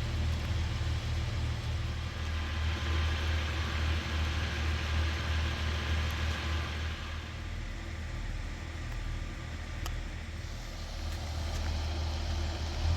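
Diesel engine idling with a steady low hum. A hiss lies over it and fades about seven seconds in.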